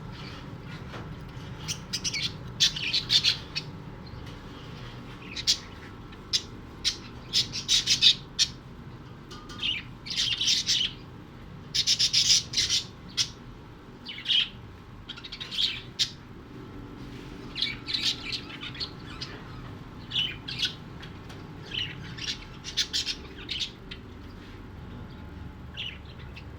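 A parrot calling in many short, shrill squawks and chirps, coming in irregular clusters throughout, over a steady low hum.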